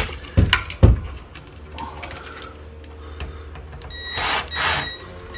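Compact Ridgid cordless drill/driver driving a receptacle mounting screw: two short runs of the motor near the end, after two light knocks about half a second and a second in.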